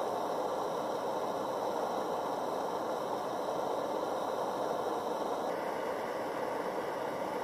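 MSR Dragonfly liquid-fuel stove burning at full flame, its pressurized burner giving a steady rushing noise. About five and a half seconds in the sound turns slightly duller.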